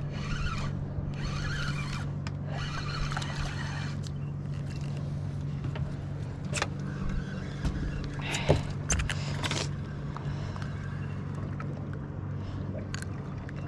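Boat's outboard motor idling with a steady low hum, with gear-handling knocks and rustles over it; the sharpest knock comes about eight and a half seconds in.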